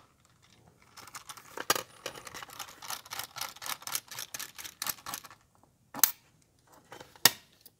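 Small Phillips screwdriver working a tiny screw out of the Dell XPS 13 9350's aluminium bottom cover under the service-tag flap: a quick run of light metal clicks and scrapes for about four seconds, with a few sharper single clicks, the last ones near the end.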